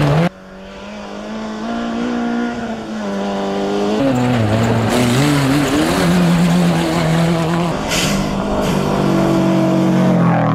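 Rally car engines revving hard as cars pass one after another on a gravel stage, the pitch climbing in steps through upshifts and dropping back, over the hiss of tyres on loose gravel. The sound cuts abruptly between cars, dropping sharply just after the start and then building as the next car approaches.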